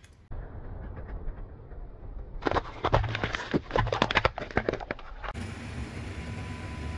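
Hollow plastic eggs cracking and snapping under a car tyre as it rolls over them: a rapid run of sharp cracks lasting about three seconds over a low rumble. The cracks stop suddenly, leaving a steady low rumble.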